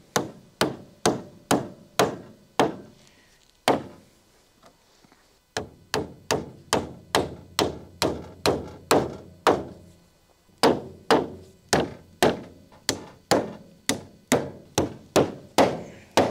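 Hammer driving 1.5-inch galvanized siding nails through siding into a wooden door frame: a run of sharp strikes, about two to three a second. The strikes pause for a few seconds about three seconds in, with a single strike in the gap, and stop again briefly about ten seconds in.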